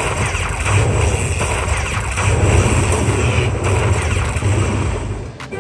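Aristocrat Heart Throb Lightning Link slot machine's win rollup sound while the credits count up: a loud, dense electronic rush over a low rumble with rising swooshes. It cuts off suddenly near the end, and a brighter tune of separate tones begins.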